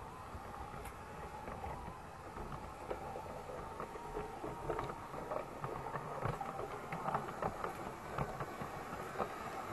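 Piko G-scale BR 80 model locomotive running on its track, its electric motor whirring with a steady faint hum while the wheels click irregularly over the rail joints. It gets steadily louder as the train picks up speed.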